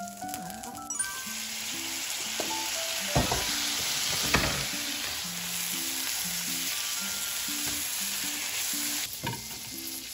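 Asparagus sizzling as it fries in the fat left from the steak in a stainless steel frying pan, turned with tongs. The sizzling starts about a second in and stops a second before the end, with two sharp knocks partway through.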